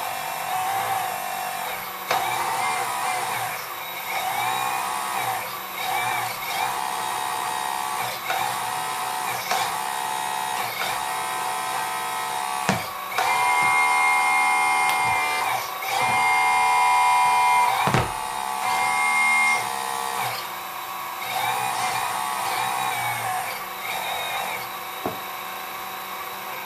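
Small electric hydraulic pump of an RC model Locust 752 skid steer loader whining in short start-stop runs as the boom and bucket move, its pitch shifting from run to run. Past the middle it holds two longer, louder, steadier whines, with a few sharp clicks between runs.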